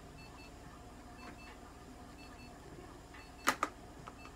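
Electronic beeping from clinic equipment: short high beeps in pairs about once a second. A little past three seconds in, a sharp double clack, two quick knocks, stands out above it.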